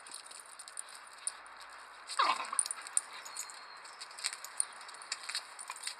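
Two dogs scuffling in play: one gives a short whine that slides steeply down in pitch about two seconds in, among scattered light clicks as they tussle.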